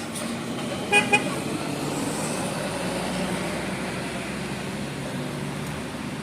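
Bus horn giving two short toots about a second in, over the steady engine and road noise of passing traffic.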